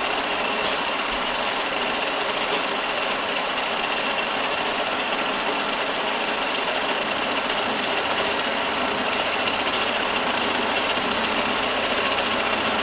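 Milling machine running steadily during rotary-table milling, with a high band in the noise near the top.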